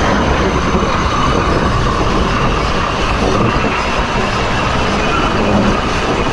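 Close-up running noise of D&RGW 491's number 4 driving wheel, the steel wheel rolling on the rail with its flange rubbing against the inside rail: a steady, loud rolling grind as the steam locomotive descends the grade.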